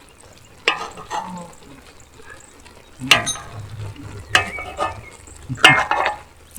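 Food frying in a large saj being stirred: four scraping strokes of a utensil against the pan, with sizzling between them.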